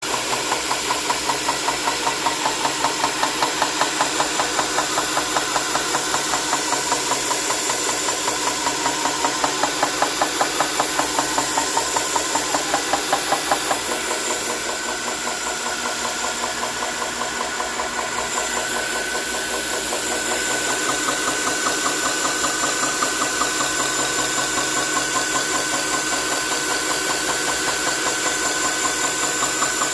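Powered sharpening machine running steadily with an even pulsing hum while scissors are sharpened; about halfway through the pulsing softens and a steady whine comes in.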